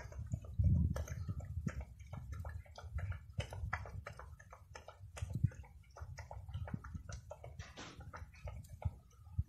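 A dog chewing its food: irregular crisp crunches, several a second, over a low steady rumble.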